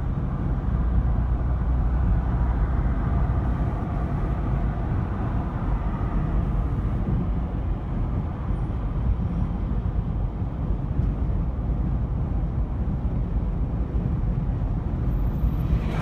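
Steady low rumble of a car driving at road speed on a highway: tyre and engine noise.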